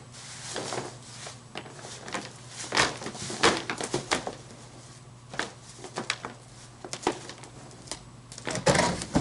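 Irregular rustling, scraping and knocking as mulched leaves are scooped into a plastic garbage can lying on its side, with a louder cluster of scrapes near the end.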